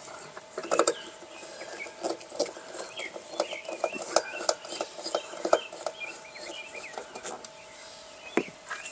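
T20 Torx screwdriver driving the two screws that hold a 2005 Jeep Liberty's tail light assembly, with irregular clicks and taps as the screws and plastic housing are worked. Birds chirp in the background.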